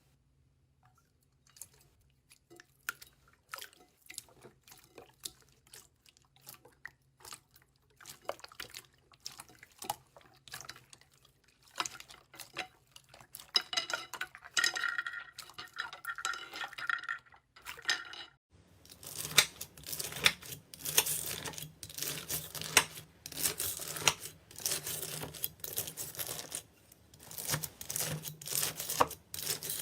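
Slime being squeezed and poked by hand: a dense stream of small wet clicks and pops, faint at first with some squeaks, then much louder from about two-thirds of the way in.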